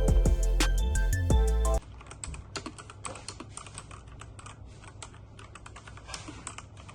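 Background music that cuts off suddenly about two seconds in, followed by fast, uneven typing on a mechanical keyboard with Outemu blue clicky switches, key clicks following one another rapidly.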